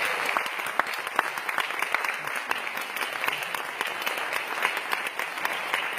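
Audience applauding, a steady spatter of many hand claps.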